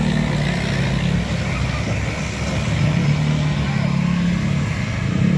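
Heavy diesel truck engine running, its low pitched drone shifting in pitch every second or two.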